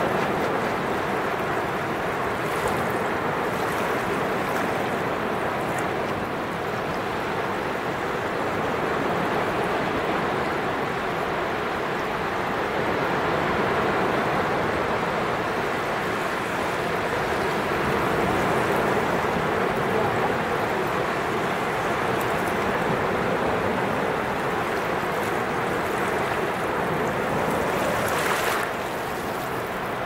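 Small Black Sea waves breaking and washing up over the sand at the water's edge: a steady rush of surf that swells and eases gently, with a brief sharper hiss about two seconds before the end.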